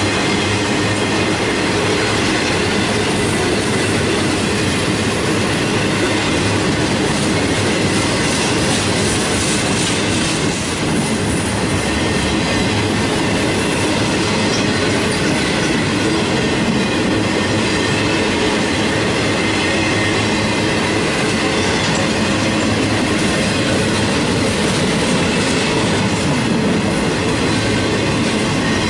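Continuous welded rail train's loaded rack cars rolling past close by: steel wheels running on the track in a steady, unbroken noise.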